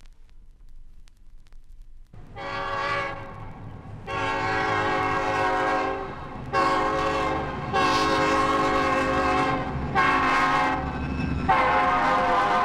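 A loud horn sounds in about six blasts of uneven length, starting about two seconds in, over a steady low rumble.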